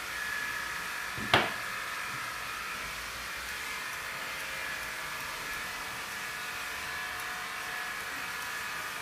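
Small electric motor whirring steadily, with one sharp knock about a second and a half in.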